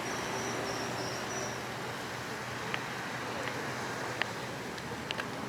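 Steady outdoor wind-and-surf noise along a seafront, with a short high trill in the first second and a half and a few faint ticks later on.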